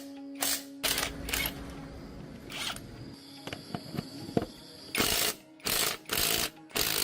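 Hand tools working on rusty metal tractor parts: a run of short rasping strokes in irregular bursts, with small clicks and knocks between them.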